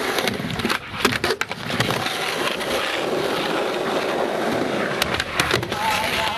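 Skateboard wheels rolling on concrete, with a cluster of sharp knocks of the board about a second in and a few more near five seconds.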